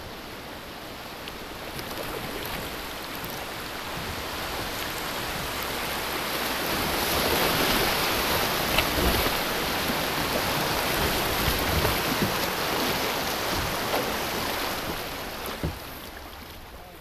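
Rushing water of a shallow rocky river riffle as a kayak runs through it. It swells to its loudest around the middle and eases off near the end, with a few sharp knocks along the way.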